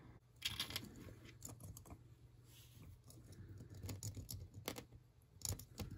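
Faint, scattered small clicks and taps of fingers handling the float and needle valve of a Yamaha Bear Tracker 250's carburetor, small metal parts touching the carb body.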